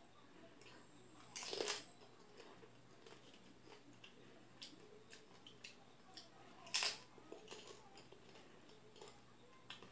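Panipuri being eaten close to the microphone: two loud, short crunching bites of the crisp, water-filled puri shells about five seconds apart, with faint chewing and mouth clicks between.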